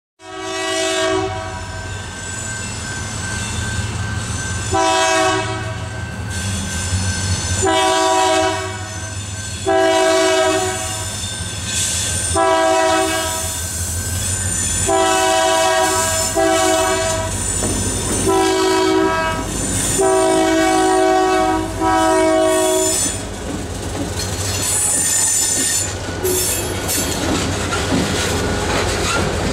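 Canadian National diesel freight locomotive sounding its multi-chime air horn in about a dozen blasts of varying length, over the low rumble of its engine. After about 23 seconds the horn stops and covered hopper cars roll past with wheel clatter and brief high wheel squeals.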